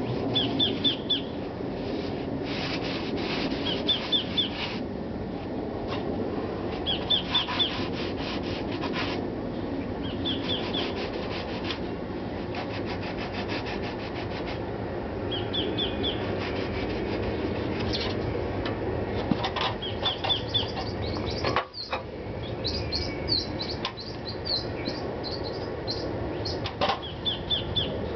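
Hand sanding of timber eaves and fascia with a 120-grit sanding block and sponge sander: quick back-and-forth rasping strokes in spells of a second or two. A bird repeats a short high chirping phrase every few seconds over a steady low background hum.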